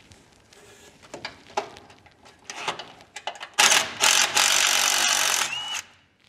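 Metal tool clicks and knocks on the frame rail, then a power tool runs steadily for about two seconds, loosening the bolt that holds the truck's old brake distribution block, before stopping near the end.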